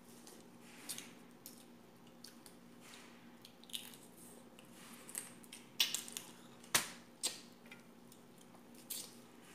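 Crab and shrimp shells being cracked and peeled by hand, with chewing: scattered sharp crackles and clicks, the strongest about six to seven seconds in, over a faint steady hum.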